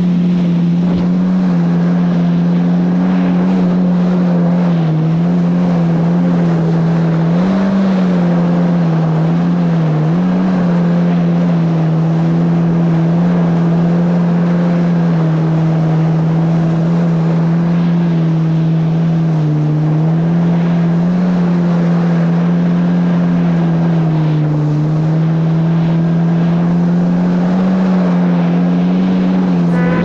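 Yamaha GP1800R SVHO jet ski's supercharged four-stroke engine running steadily at speed, its drone dipping slightly in pitch several times, over the rush of water spray and wind.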